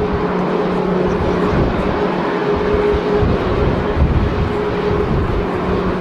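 Jet engines of a Boeing 777 running as it rolls along the runway: a steady rush of jet noise with a held hum in it. Gusts of wind buffet the microphone underneath.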